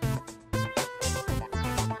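Background electronic music with a steady beat: repeating drum hits over bass notes and sustained synth tones.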